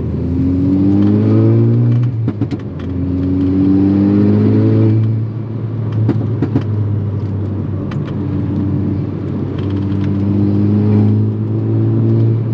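Turbocharged four-cylinder engine of a modified MK6 Volkswagen Golf R with an aftermarket turbo exhaust, accelerating hard. The revs climb, break at an upshift about two seconds in, climb again to a second shift about five seconds in, run steadier for a few seconds, then rise once more.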